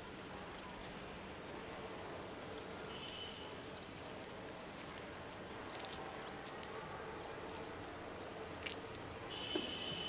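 Outdoor ambience: a steady background hiss with faint, scattered chirps of small birds, and a brief high trill about three seconds in and again near the end.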